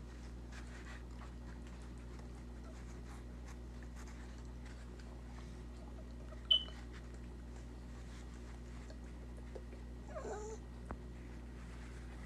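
Pet rat nibbling and tearing toilet paper, faint small crackles and ticks over a steady low hum. One short high squeak about six and a half seconds in, and a brief wavering squeal near ten seconds.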